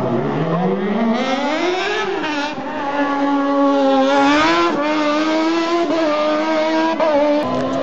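Sports-prototype hill-climb race car accelerating hard uphill: the engine note climbs from low revs, then rises and drops several times as it shifts through the gears.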